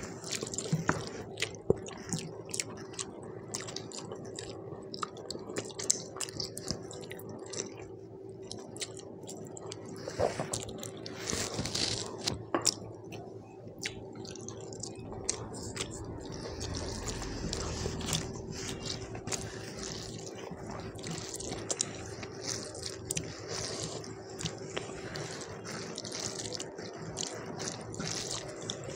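Close-miked eating by hand: rice being squeezed and mixed into thin mutton curry with wet squelches, along with chewing and lip smacks. The mixing gets denser and steadier in the second half.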